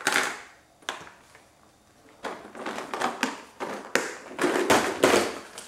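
Clear plastic tackle tray of squid jigs being handled: a clatter at the start, a single click about a second in, then a run of plastic taps and rattles.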